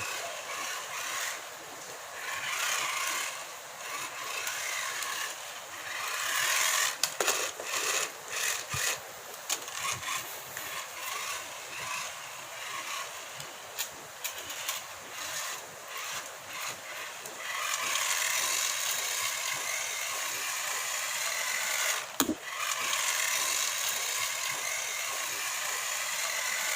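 Tiny 1:43-scale RC car running, its small electric motor whirring at a high pitch, with scattered clicks and knocks, busiest a few seconds in and again once near the end.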